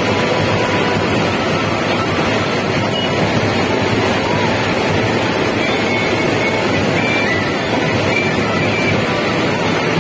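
Combine harvester running steadily while unloading through its auger, a loud unbroken machine noise mixed with the rushing hiss of grain pouring into a tractor trolley.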